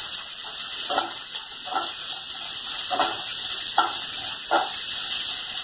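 A metal slotted spoon stirring food in a non-stick frying pan on a gas stove, its strokes against the pan coming about five times over a steady hiss of frying.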